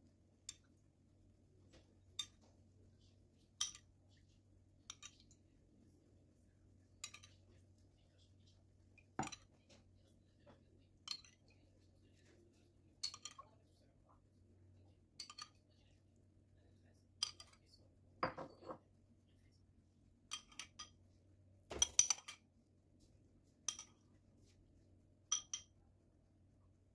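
Metal spoon clinking against a ceramic bowl as syrup is scooped out and spooned over a cake, a light clink every second or two. A louder cluster of clinks comes a little past two-thirds through.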